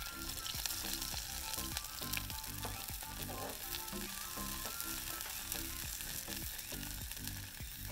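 Thick piece of meat sizzling hard in a long-handled iron frying pan over a charcoal grill, a steady hiss with scattered spitting pops of fat. Background music with a repeating low beat plays under it.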